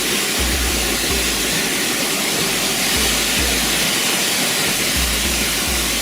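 Steady rush of a waterfall, with music's low bass notes repeating underneath.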